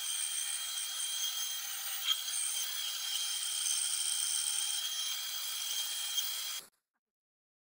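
Benchtop bandsaw cutting through a thick wooden block, a steady high whine over the rasp of the blade in the wood. The sound cuts off abruptly near the end.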